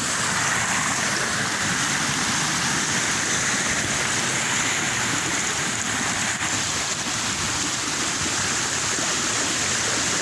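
Waterfall rushing: a loud, steady roar of falling and splashing water.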